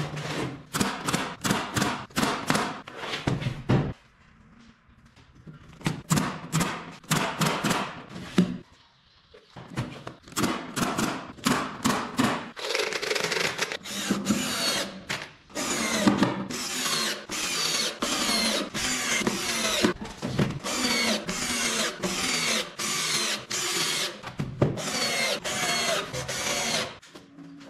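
Cordless drill driving screws into pine boards, its motor whining in many short bursts, several a second, with two brief pauses in the first ten seconds.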